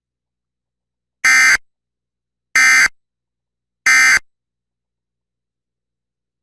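Three short, harsh digital data bursts, evenly spaced a little over a second apart: the Emergency Alert System (SAME) end-of-message tones that close a broadcast severe thunderstorm warning.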